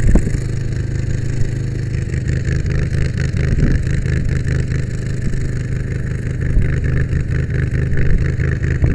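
Brush truck engine running steadily as the truck rolls slowly along a gravel road, with tyre and wind noise, heard from the truck's back deck.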